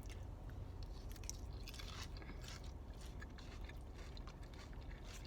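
A person chewing a mouthful of food close to the microphone, with small scattered mouth clicks.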